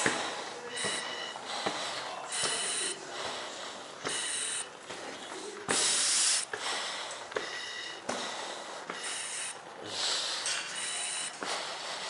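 Hard, rhythmic breathing through a training mask's valves, each breath hissing with a faint whistle, about eight breaths in a row.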